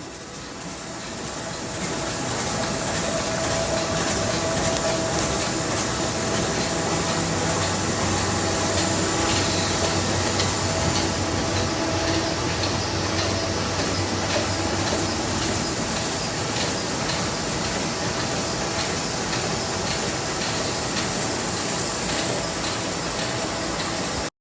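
1998 Ryobi 525 HX L five-colour sheetfed offset press running, a steady dense mechanical clatter with many rapid ticks, getting louder over the first couple of seconds.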